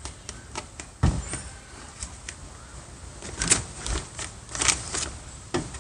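Scattered clicks and knocks of hands working the plastic trim and parts inside a car door, with a dull knock about a second in.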